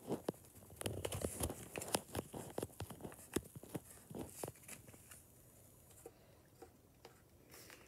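Crayon drawing on paper laid on a wooden tabletop: a quick run of short scratchy strokes and taps for about five seconds, then thinning to a few light taps, with a short paper rustle near the end.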